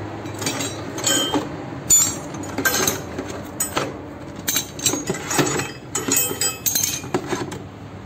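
Metal hand tools (T-handle wrenches, spanners and screwdrivers) clinking and clattering against each other and a concrete floor as they are pulled out of a plastic jug and dropped in a pile. The clinks are sharp and irregular.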